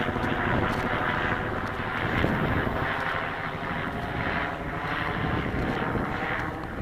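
Electric motor and propeller of an FMS 1450 mm P-51 Mustang radio-controlled plane in flight: a continuous whirring drone that swells and eases as the plane flies around.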